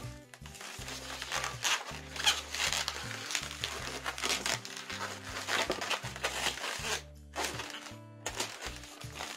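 Background music over the rubbing and squeaking of long latex modelling balloons being twisted and woven by hand. The handling noise comes in short, irregular bursts.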